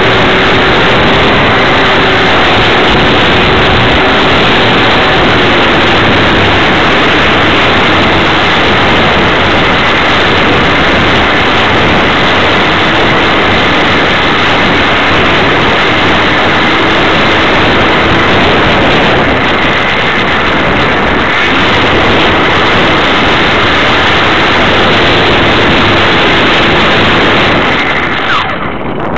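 Onboard sound of a radio-controlled Tiger Moth model biplane in flight: a loud, steady rush of motor, propeller and wind noise on the camera's microphone, with a faint motor tone that drifts up and down with the throttle. Near the end the noise drops away and breaks into a few sharp cracks.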